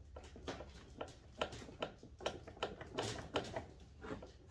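Irregular light clicks and taps, two or three a second, of hands working a small nut and bolt into the plastic steering column of a children's ride-on toy car.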